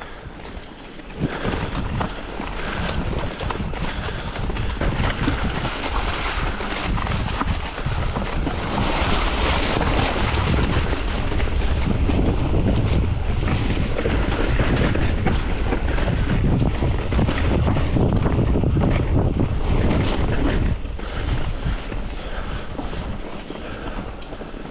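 Mountain bike riding down a rough trail: wind buffeting the microphone, with many small knocks and clicks from the tyres and bike over the ground. It builds up about a second in and eases off near the end.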